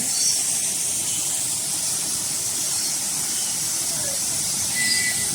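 A steady, even hiss, with a few short bird chirps in an aviary, one near the start and a couple about five seconds in.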